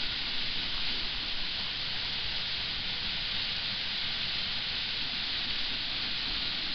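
Large waterfall: a steady, even hissing rush of falling water, with no breaks or changes.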